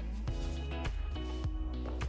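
Quiet background music of held notes that change every half second or so, with a few soft clicks.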